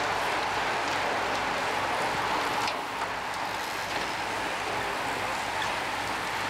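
Steady hiss and whirr of a large bunch of road racing bicycles riding past on asphalt, with a few faint clicks.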